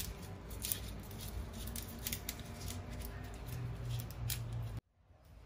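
Irregular light clicks and taps over a low steady hum, cutting off abruptly near the end.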